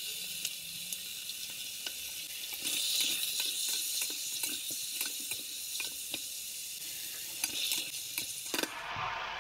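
Chicken pieces sizzling in hot rendered fat in a pot as they are sautéed, with a wooden spoon scraping and knocking against the pot as they are stirred. The sizzle grows louder about three seconds in and stops abruptly near the end.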